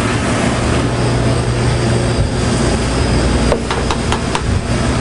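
Steady loud hum and rush of a commercial restaurant kitchen's equipment around a gas range, with a few quick light clicks about three and a half seconds in.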